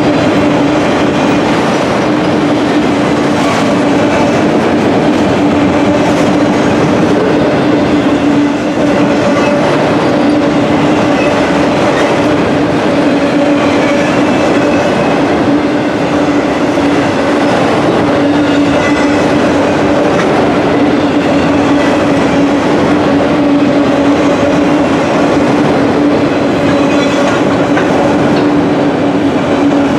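Freight train of enclosed auto rack cars rolling past close by: steel wheels running on the rails with a steady, loud rumble and a steady hum through it.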